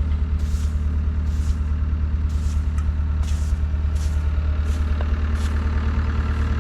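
Engine idling steadily with a deep, even hum, a soft hiss coming through about once a second.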